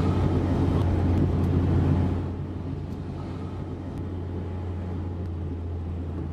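Road and engine noise heard from inside a moving car, a steady low rumble that drops about two seconds in to a quieter, steady low hum.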